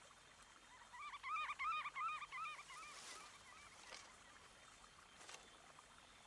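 A bird calls a quick run of short rising-and-falling notes, about five a second, starting about a second in and lasting under two seconds. It is followed by a few faint clicks.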